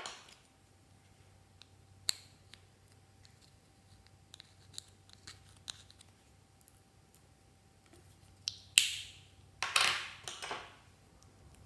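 Small plastic makeup compacts being handled: scattered light plastic clicks and taps of the lids and cases, then a louder snap nearly nine seconds in followed by about a second of scratchy scraping.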